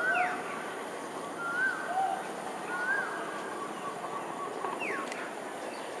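Smooth-coated otters chirping: short whistled calls that rise and fall, a few in the first three seconds, and one quick falling call near the end, with a faint run of rapid notes in between.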